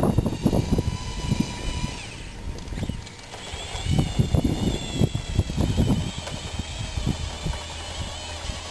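Radio-controlled model crawler bulldozer's electric drive motors whining, the pitch shifting about two to three seconds in as it changes direction, with irregular crunching of gravel and dirt under its tracks and blade.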